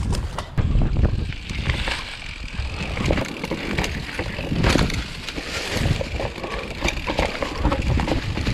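Mountain bike descending a dirt forest trail: tyres rolling over dirt, roots and dry leaves, with the drivetrain and frame clattering over bumps and wind buffeting the camera microphone.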